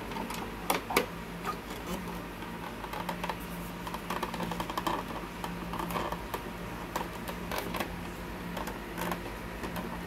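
Plastic clicks and rattles of parts being handled and pushed into an open colour laser printer, sharpest about a second in, as parts that won't seat properly are worked at. A steady low hum runs underneath.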